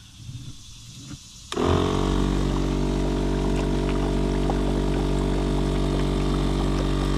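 A 12-volt aerator air pump, wired to a truck battery, switches on about a second and a half in with a brief spin-up, then runs with a steady hum while its air bubbles up through the water of a cooler used as a live bait tank.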